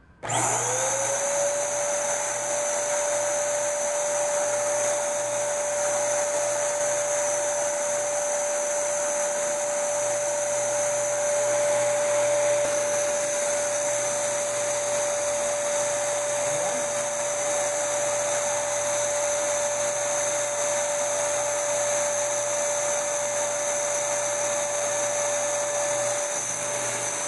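650 W electric paint sprayer's blower unit running steadily with a whine and a strong airy hiss as it sprays a test load of water through the gun. It winds up quickly when switched on and cuts off suddenly near the end.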